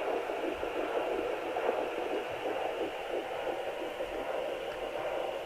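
Speaker of a handheld home fetal Doppler: steady whooshing static with a faint, fast pulsing in it, the very faint heartbeat of an 8-to-9-week fetus picked up with the probe pressed low and angled under the pubic bone.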